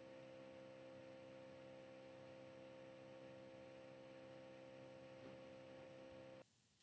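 Near silence: faint steady electrical hum and hiss of the recording, which cuts out to dead silence near the end.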